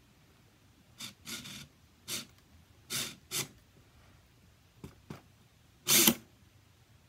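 An animatronic Halloween prop being handled at its top: a string of short scraping and rustling noises, two small sharp clicks about five seconds in, and a louder scrape about six seconds in.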